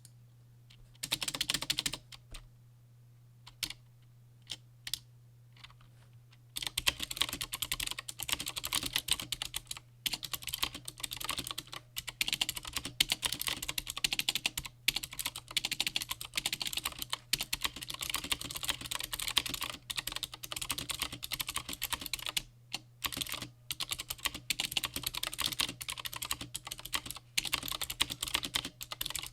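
Typing on a Das Keyboard 4 Professional with clicky Cherry MX Blue switches, thick PBT keycaps and O-rings dampening each keystroke. A short burst of keystrokes comes about a second in, then a few single key presses, then fast continuous typing from about six seconds in.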